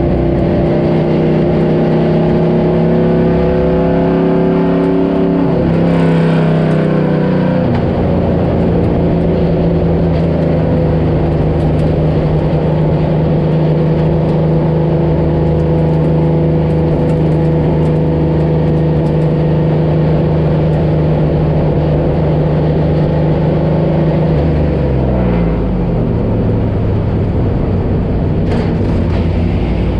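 An engine running at a steady pitch under constant load. Its pitch falls twice, about six seconds in and again about twenty-five seconds in.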